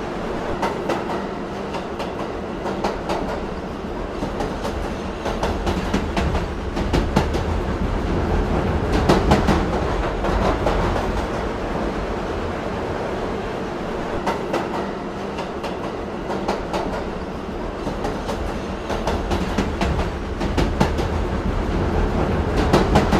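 Subway train running, heard from on board: a steady rumble with repeated clicks of the wheels passing over rail joints, swelling louder in places.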